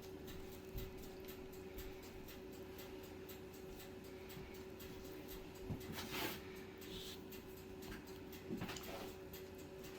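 Quiet kitchen room tone with a steady faint hum, and a few soft brushing and slapping sounds from hands laying raw bacon strips over a rolled pork roast, about six seconds in and again near nine seconds.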